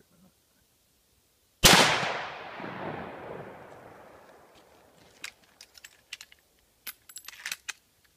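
A single rifle shot about a second and a half in, its echo rolling away through the woods for about three seconds. Later come several small, light clicks.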